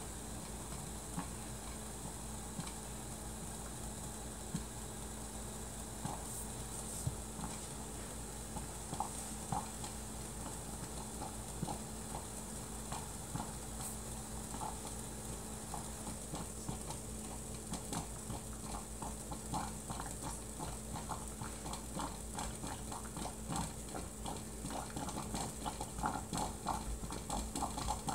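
Silex glass stovetop coffee percolator perking: irregular pops and gurgles of boiling water spurting up the stem, sparse at first and coming quicker and louder over the second half as the coffee brews.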